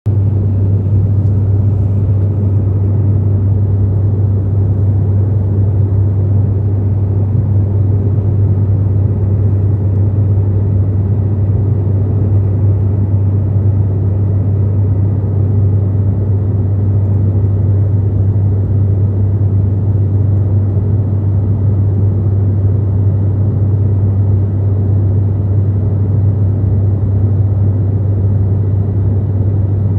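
Aeroplane engines heard from inside the passenger cabin: a loud, steady low drone with a faint, even high-pitched whine over it.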